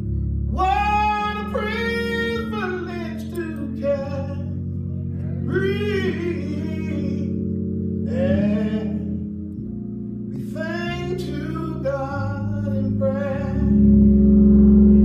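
A man singing a gospel hymn in long, bending phrases, accompanying himself on an organ with held chords. The organ swells louder near the end.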